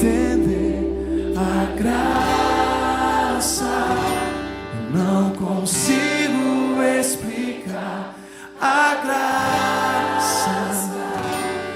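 Contemporary Christian worship music: sustained instrumental accompaniment with singing voices carrying no clear words. A low held bass note drops out about halfway through, and the music briefly thins a little past two-thirds of the way.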